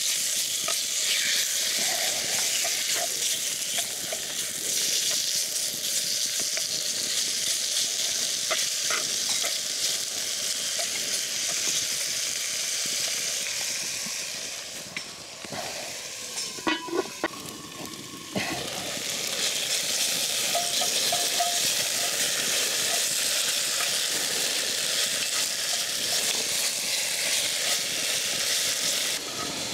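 Yogurt-marinated chicken pieces sizzling in a hot pan on a wood-burning stove. The sizzle is steady, fades for a few seconds about halfway with a few clinks, then comes back just as strong.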